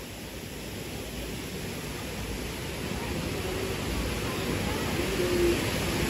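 Steady rushing of a waterfall, growing gradually louder.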